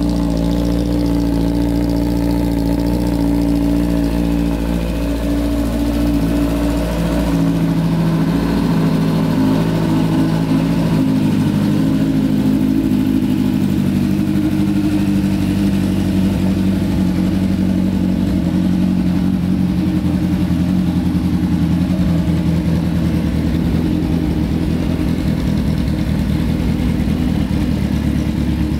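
Kawasaki ZX-10R's inline-four engine idling steadily at an even pitch.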